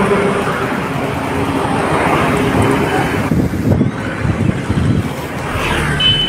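A motor vehicle running, with road noise and wind rushing over the microphone. About three seconds in, the high hiss drops away, leaving irregular low buffeting and knocks.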